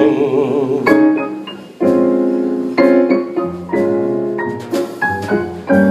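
Jazz piano playing a short fill of separate chords between vocal lines, with upright bass notes entering partway through; a sung note with vibrato fades out over the first second.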